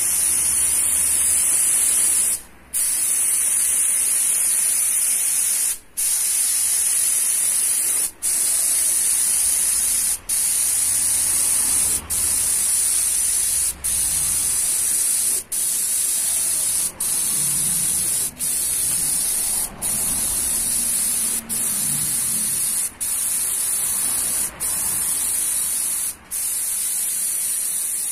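Gravity-feed compressed-air spray gun spraying varnish: a loud, steady high hiss, broken by short gaps every second or two as the trigger is let go between passes.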